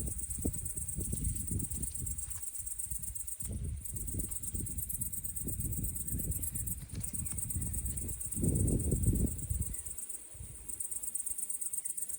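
Crickets chirring steadily in a continuous high-pitched chorus, over an irregular low rumble that swells about eight seconds in.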